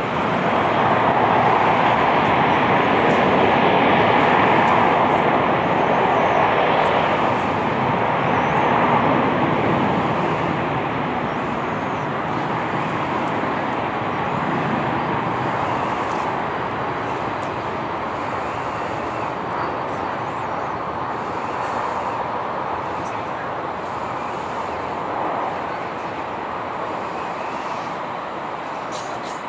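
Distant roar of a British Airways Boeing 747-400's four Rolls-Royce RB211 engines at taxi power, a steady rushing noise without clear tones. It swells over the first few seconds, then slowly fades as the jet taxis away.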